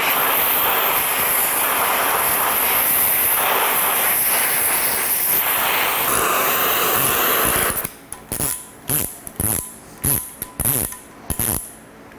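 Oxy-fuel torch flame hissing steadily while it heats the diesel engine block to free seized screw-in oil galley plugs. The flame cuts off about eight seconds in, and a string of sharp metal clicks and clinks follows as a wrench works the plugs.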